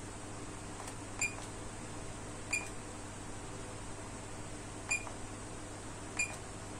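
DJI Mini 2 remote controller beeping: four short, high electronic beeps, each with a click, spaced unevenly a second or more apart, over a steady background hiss.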